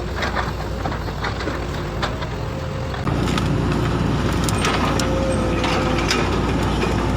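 Excavator diesel engine running steadily, with scattered sharp metal clicks and knocks. About three seconds in, the engine sound turns abruptly louder and rougher.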